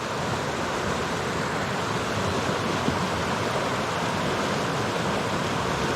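Fast river water rushing, a steady even rush.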